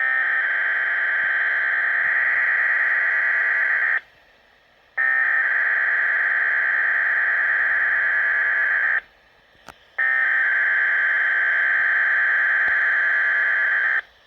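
SAME digital alert header for a Weather Radio Canada Required Weekly Test: three bursts of warbling two-tone data, each about four seconds long and a second apart. A faint click falls in the second gap.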